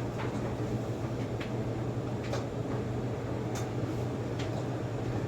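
A steady low hum with about five light clicks and knocks scattered through it.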